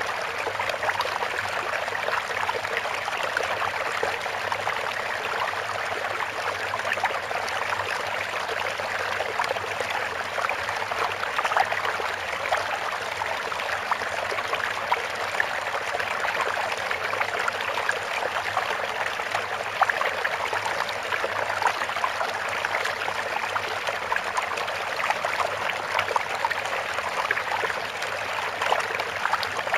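Running stream water, trickling and babbling steadily with no change.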